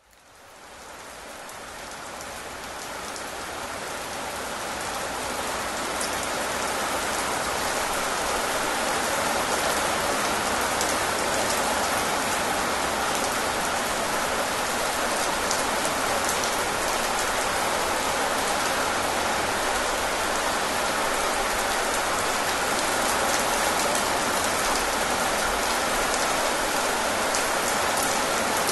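Steady rain falling, fading in from silence over the first several seconds to an even, constant hiss of drops.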